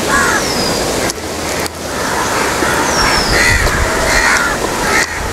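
Steady rushing wind noise on the microphone, with crows cawing now and then and a bird's high falling whistle near the start and again about three seconds in.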